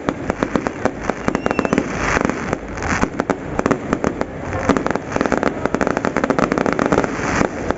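Fireworks going off: a rapid, unbroken crackle of many sharp pops, several every second.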